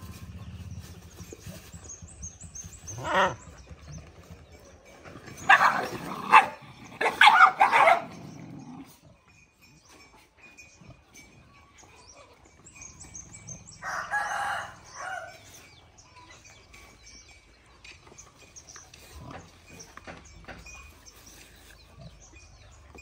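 Loud animal calls in short bursts: one about three seconds in, a broken cluster from about five to eight seconds, and another near fourteen seconds. Faint high chirping and a thin steady whine sit underneath.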